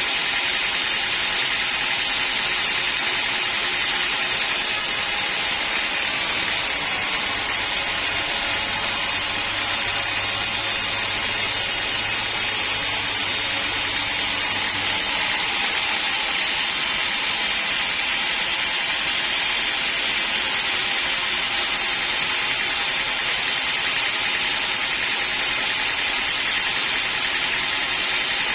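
Band sawmill running steadily, a constant machine hiss with no break or change in level.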